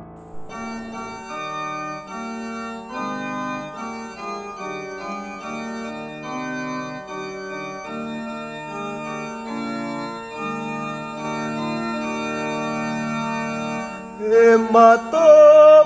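Electronic keyboard on an organ voice playing a slow hymn introduction in held chords with a moving bass line. About a second and a half before the end, a voice begins singing the psalm's refrain over it.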